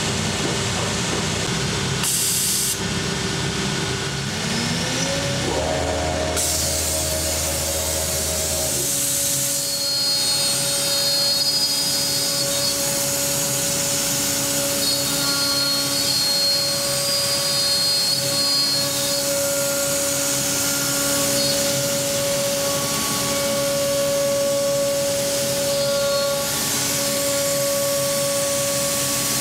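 Selexx Chief CNC router at work on a wooden panel: a rising whine about five seconds in as the spindle spins up, then a steady high whine over a loud continuous hiss as it cuts.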